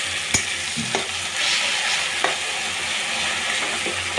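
Masala sizzling as it fries in hot oil in a pan, stirred with a spatula that knocks against the pan a few times.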